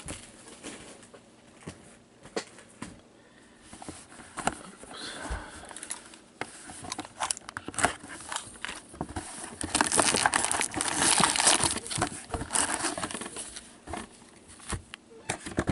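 Plastic shrink wrap crinkling and a cardboard trading-card box being opened by gloved hands, then its foil packs rustling as they are pulled out. Scattered clicks and rustles, loudest from about ten to thirteen seconds in.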